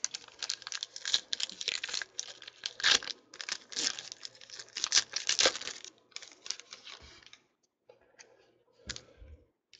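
Foil wrapper of a 2014 Panini Crown Royale card pack being torn open and crinkled by hand. There is a dense run of crackling for about six seconds, then sparser, lighter crinkles.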